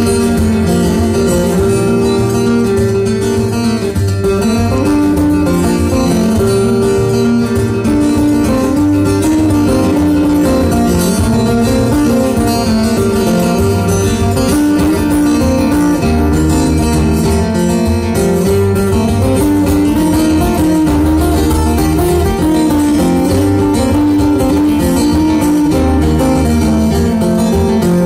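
Two steel-string acoustic guitars playing together in an instrumental passage, with continuous chords over a steady bass line.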